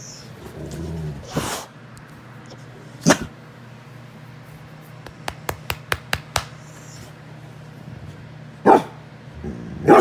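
Dog barking: single short, sharp barks about three seconds in and twice near the end, with a low grumble before the first bark. A quick run of about seven clicks comes in between.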